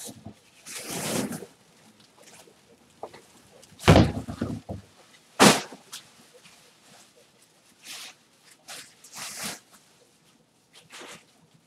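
Bursts of rustling and handling noise, with a heavy thud about four seconds in and a sharp knock about a second and a half later.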